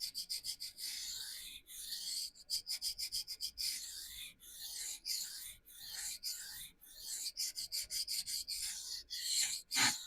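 Steel knife blade scraped in a run of quick back-and-forth strokes across a vitrified diamond sharpening stone, a gritty hiss with each stroke. The strokes remove steel to even out a lopsided edge bevel after a burr has already formed.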